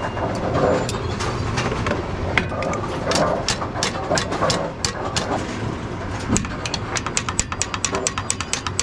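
Steady machinery hum with scattered knocks and clanks. About two-thirds of the way in, a rapid, even clicking of about six clicks a second begins.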